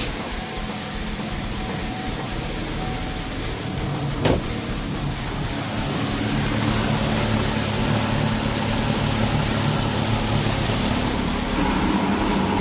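2010 Chevy Malibu engine idling steadily, freshly filled with new oil and a new filter, with a thin high whine over it. A single sharp click about four seconds in.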